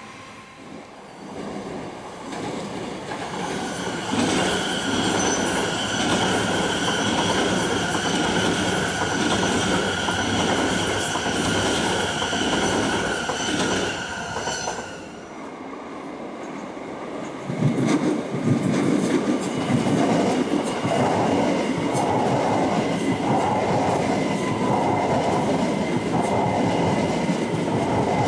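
Electric trains passing close by in turn. The first runs past with a steady high whine over wheel-on-rail noise for about ten seconds. After a short lull, a Heathrow Express Class 387 electric multiple unit comes through with a rhythmic clatter of wheels over rail joints.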